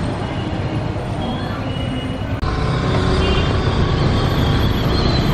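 Busy road traffic: passing cars and two-wheelers with steady engine and tyre noise, and a few short, faint horn notes. About halfway through there is an abrupt break, and the traffic noise comes back louder.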